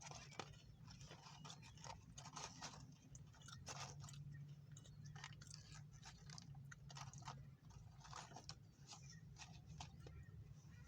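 A person chewing crisp tortilla chips close to the microphone, with irregular crunches over a low, steady hum.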